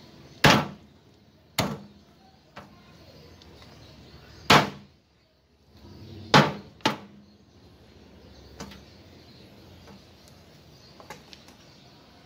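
A homemade meat cleaver, made from an old circular saw blade, chopping raw meat on a wooden log block: five loud chops at uneven intervals, two of them in quick succession about six and a half seconds in, with a couple of lighter strikes between.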